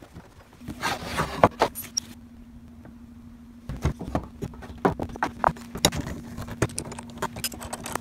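A run of sharp knocks, clicks and clinks as a metal table-leg frame, clamps and hand tools are handled on a plywood table top, over a steady low hum that starts under a second in.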